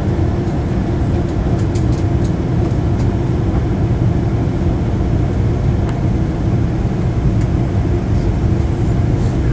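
Steady low rumble of a Boeing 737-800's cabin in flight on descent: airflow and engine noise heard from the front row, with a few faint clicks.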